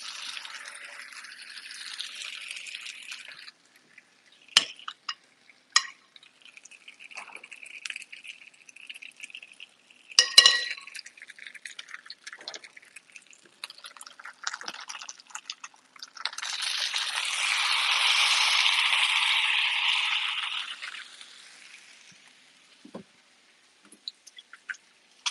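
Marinated barnyard-millet dhokla slabs sizzling as they are laid on a thoroughly preheated grill pan. A short sizzle comes at the start, then a few light clinks and a sharp knock about ten seconds in. A louder sizzle lasting about five seconds follows as the second slab goes down, then fades.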